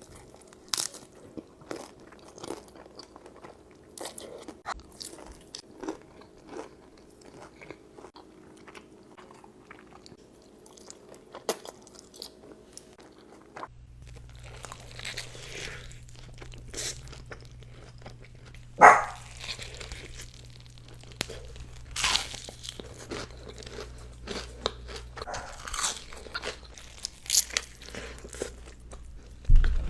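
Close-miked mukbang eating: crunchy bites and wet chewing in quick succession. About halfway through, a steady low hum comes in under the bites, and a single loud crunch lands shortly after.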